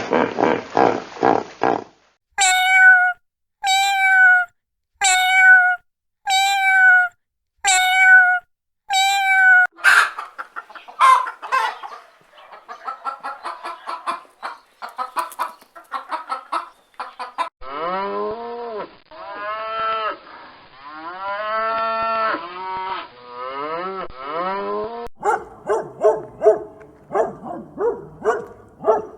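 Farm animals calling, one kind after another: first six evenly spaced pitched calls, then a run of quick short calls, then long wavering calls, then quick repeated calls near the end.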